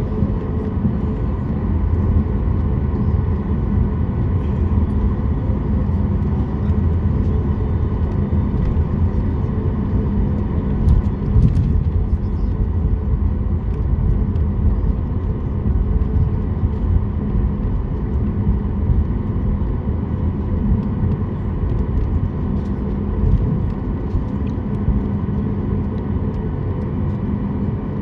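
Cabin noise inside a Boeing 737 MAX 8 with its engines running: a steady low rumble with a constant hum.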